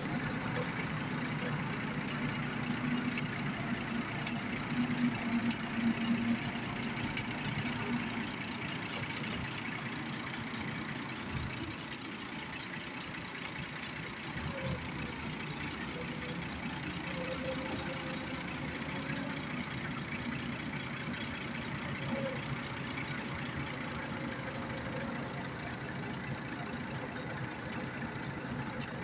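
Excavator's diesel engine running steadily, with a few faint clicks.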